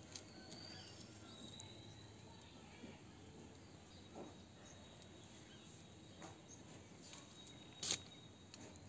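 Faint outdoor background: a thin, high, steady tone over a soft hiss, with a few light clicks and one sharper click near the end.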